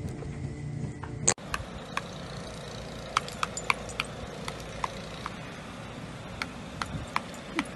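A low steady hum, cut off by a sharp click about a second in. Then a metal garden wind spinner ticks and clinks lightly and irregularly as it turns on its pole, over a faint steady background.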